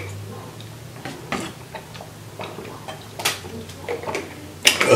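Person gulping a drink from a plastic bottle: a string of soft swallowing clicks, with a louder noise near the end.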